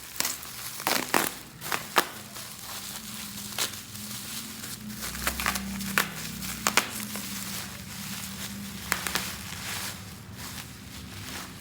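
Plastic packaging crinkling and crackling as it is handled and unwrapped, with scattered sharp clicks.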